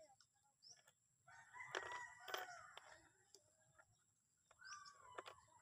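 A rooster crowing: one long crow starting about a second in, then a shorter call near the end. A couple of sharp clicks fall during the first crow.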